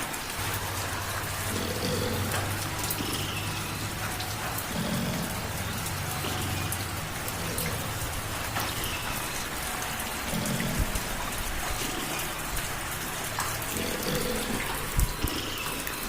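Light rain pattering steadily, with a cat purring: a low rumble that swells in cycles every few seconds with its breathing.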